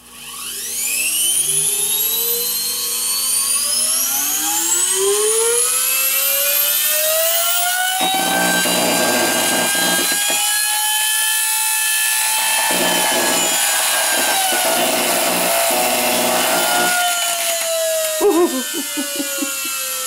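An old Hoover floor cleaner's universal vacuum motor, powered directly through its brushes from a Variac, spins up with a whine rising in pitch for about eight seconds. It then runs flat out with loud crackling from arcing at the brushes and commutator as they burn up, and near the end the whine starts falling as the motor gives out.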